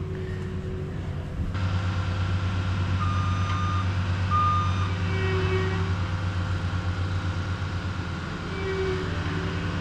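A construction loader's engine running steadily, with a few short beeps from its reversing alarm.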